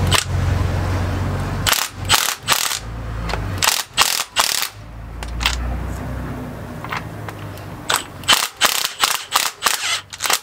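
Impact wrench run in short bursts on the strut's top hat center nut to break it loose, with a low hum and sharp rattling hits in groups about two, four and eight to ten seconds in.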